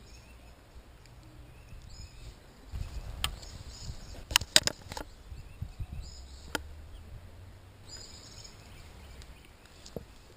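Birds chirping over a low rumble, with several sharp clicks and knocks through the middle, the loudest a quick cluster about four and a half seconds in.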